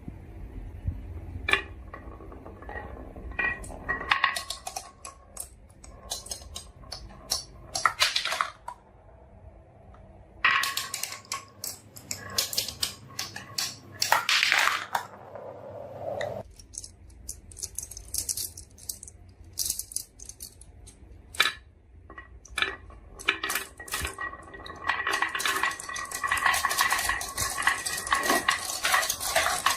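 Marbles rolling and clattering down a marble run: a string of sharp clicks and rattles, with the sound changing abruptly twice, then a dense, continuous clatter of many marbles near the end.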